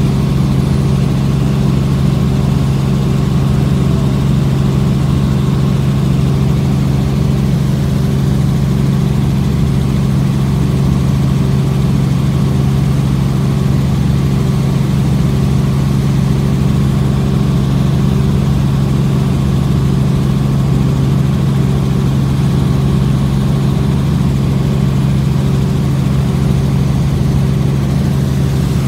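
Helicopter engine and rotors heard from inside the cabin in steady flight: a loud, unchanging drone with a deep hum that holds throughout.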